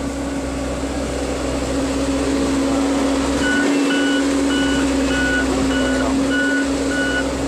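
Case 580L backhoe loader's diesel engine running steadily under load. About three and a half seconds in, its reversing alarm starts beeping, about two beeps a second, as the machine backs up.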